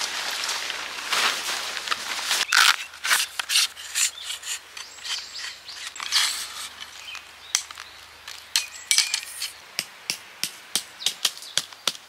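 Tarp fabric rustling as it is spread out over gravel, then scattered clicks and taps of camp gear. Near the end, a run of regular knocks, about four a second, as a tent stake is hammered in with a rock.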